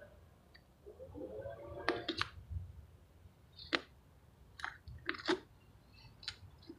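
Putty knife working thick wet roofing cement into a crack: a string of short, irregular sticky scrapes and clicks.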